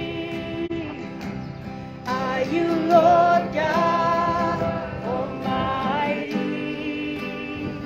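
A woman singing, accompanying herself by strumming an acoustic guitar. Her phrases have long held notes and pick up again after a short lull about two seconds in.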